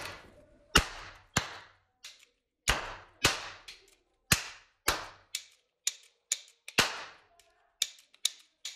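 Silver toy revolver firing a rapid, uneven string of about sixteen sharp bangs, each with a short fading tail. The shots come roughly half a second apart, with lighter, quicker shots near the end.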